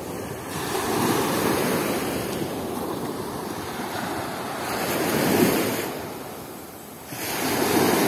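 Small waves of the Sea of Azov breaking and washing up a sandy shore. The surf rises and falls with each wave, loudest a little past halfway.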